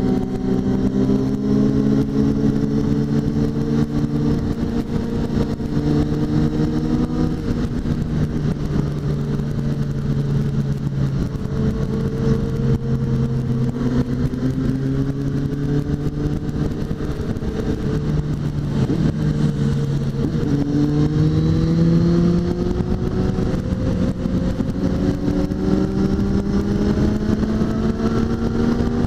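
Suzuki GSX650F's inline-four engine running at road speed, its pitch easing down and up with the throttle and climbing over the last several seconds, over a steady rush of wind noise.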